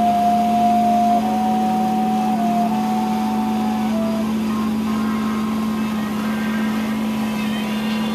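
Kubota B2601 compact tractor running at a steady speed while mowing. Background music with a stepping melody plays over it.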